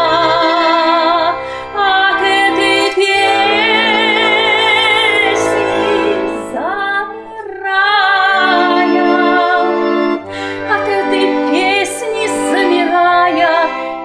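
A woman singing a Russian song in long held notes with wide vibrato, accompanied by a button accordion (bayan) playing chords and bass.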